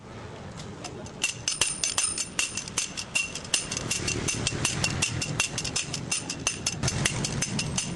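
Rapid, repeated metallic strikes, about four or five a second, each with a short ringing clink: a hand tool tamping and compacting patch material into a pavement core hole.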